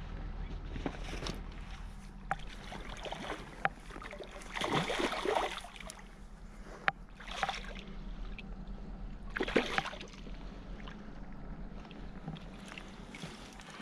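A hooked fish splashing and thrashing at the water surface in several separate bursts while it is played in and netted, the biggest about five seconds in and again near ten seconds, with a few sharp clicks between.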